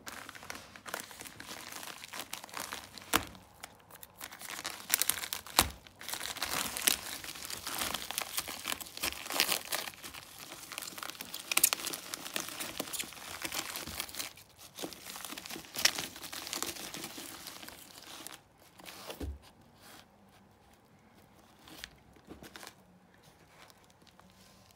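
A padded bubble mailer being torn open and crinkled by hand: continuous rustling with several sharp rips. It goes much quieter for the last several seconds, with only light handling of the paper.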